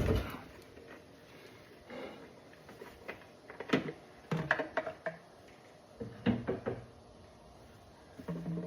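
Scattered light knocks and clicks from things being handled, the clearest in a cluster about four to five seconds in and another about six seconds in.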